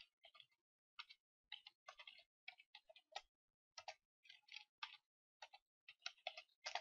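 Quiet typing on a computer keyboard: irregular keystroke clicks, several a second, with short pauses between groups.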